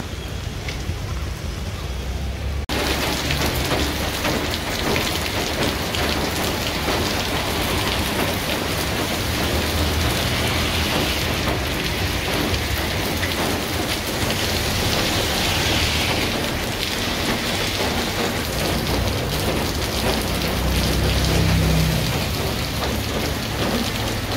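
Heavy rain falling steadily, a dense even hiss that suddenly becomes louder and fuller about three seconds in.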